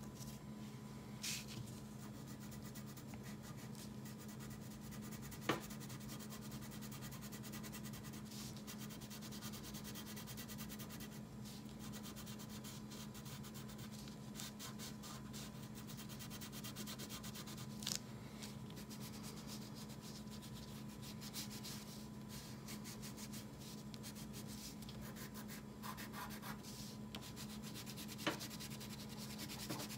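Wax crayon rubbing back and forth on paper as an area is coloured in, a continuous scratchy sound of quick strokes. A few sharp clicks come through it, over a steady low hum.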